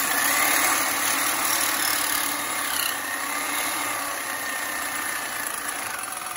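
Handheld reciprocating saw running steadily with a wavering whine while its blade cuts into the engine block, stopping near the end. The saw has a fault: it does not shut off when the trigger is let go.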